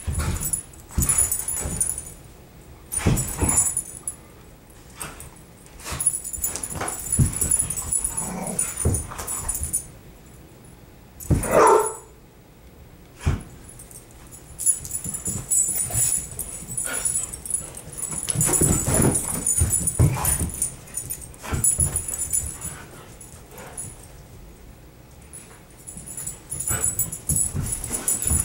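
Greyhounds playing over a plush toy: irregular scuffling and knocks of paws and bodies, with a short dog whimper about twelve seconds in.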